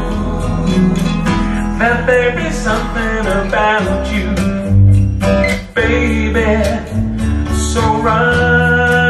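A guitar-backed song playing through home-built three-way coaxial open-baffle loudspeakers, heard in the room as a listening test. The compression-driver tweeter is one the builder finds a bit peaky and shouty.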